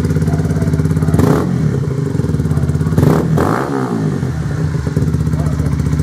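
Honda CBR125R's 125 cc single-cylinder four-stroke engine running at idle through a Scorpion aftermarket exhaust with its baffle removed. It is revved twice, briefly about a second in and harder about three seconds in, then drops back to a steady idle.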